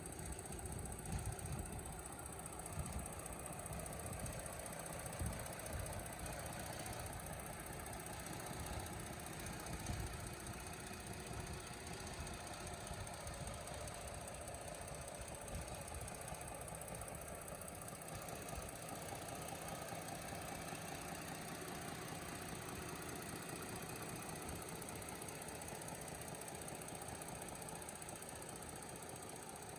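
2018 Ford Explorer Police Interceptor SUV's engine running at idle, a continuous low rumble that is uneven for about the first half and steadier later.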